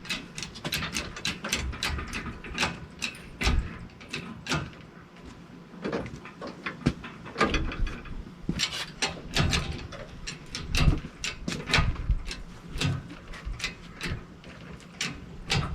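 Engine hoist and its lifting chains under load: a run of irregular metallic clicks and clanks, several a second, with a few low thumps.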